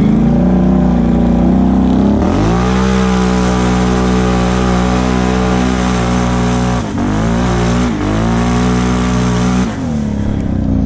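Can-Am Outlander XMR 1000's V-twin engine through its Big Gun exhaust, heard from the machine itself: it runs low at first, revs up sharply about two seconds in and holds steady high revs, eases off briefly twice, then drops back near the end.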